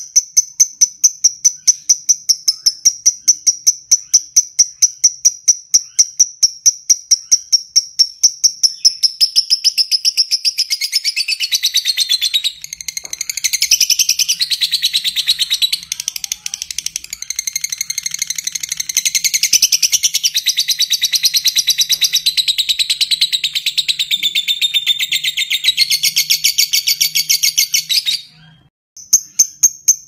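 Fischer's lovebird giving its long 'ngekek' chatter: a dense, rapid, high-pitched trill that sets in about nine seconds in, runs with two brief dips and cuts off suddenly near the end. Before it, a steady series of short high chirps, about three to four a second.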